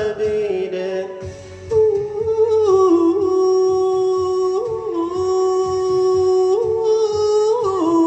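Pop song backing track with a wordless sung or hummed melody of long held notes that step up and down in pitch, over a steady beat.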